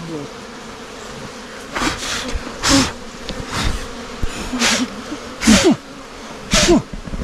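Honey bees buzzing around the microphone, with about half a dozen brief, louder buzzes bending in pitch as single bees fly close past.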